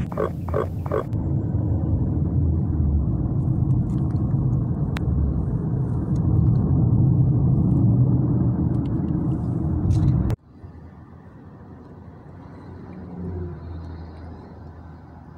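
Road and engine rumble inside a moving car's cabin, steady and fairly loud. A short pulsing sound comes in the first second, and about ten seconds in the rumble cuts off abruptly to a much quieter steady cabin hum.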